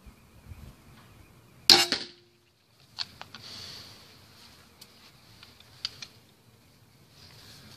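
A 160-pound Bobcat crossbow firing: one sharp crack of the string releasing about two seconds in, with a short ringing hum that dies away within half a second. A few small clicks of handling follow.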